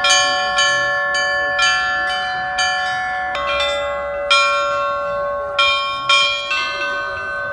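Church bells rung by hand in a peal: several bells of different pitch struck one after another, a new strike every half second to a second, their notes overlapping and ringing on under a steady lower bell.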